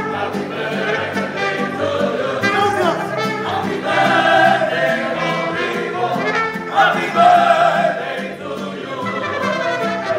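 Live mariachi band playing: trumpets and violins carry the melody over strummed guitars and a steady bass line.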